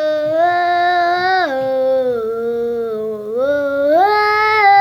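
A girl singing long held wordless "oh" notes: one steady note, then two steps down, then a climb to a higher note near the end.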